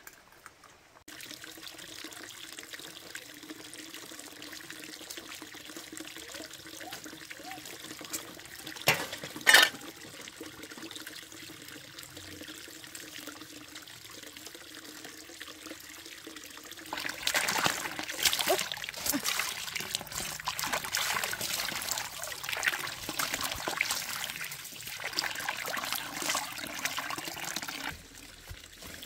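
Water trickling, turning to louder splashing and pouring about seventeen seconds in, which stops suddenly near the end; a single sharp knock about nine seconds in.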